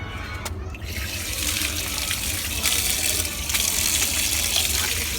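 Water running from a tap, splashing as a motherboard is rinsed under it; the flow starts about a second in and then runs steadily.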